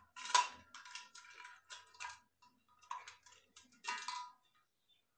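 Metal necklace pieces clinking and jingling in several short bursts as the necklace is handled and fastened at the neck.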